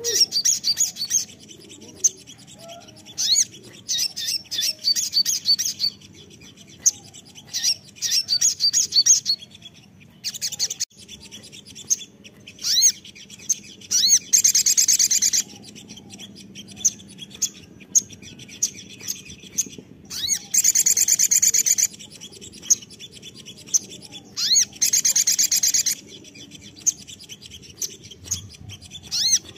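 Male olive-backed sunbird singing: a run of high, sharp chirps broken by rapid trills about a second long, three of them the loudest moments.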